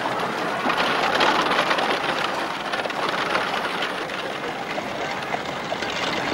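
Horse-drawn coach rolling through a busy street: a steady rumble and rattle of wheels, with hooves and crowd bustle.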